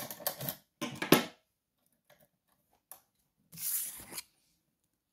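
Small metal lock-picking tools clicking and scraping against an Evva 3KS lock cylinder held in a vise as a tension tool and pick are fitted into the keyway. A cluster of sharp clicks comes in the first second and a half, then a few faint ticks, then a brief scrape about three and a half seconds in.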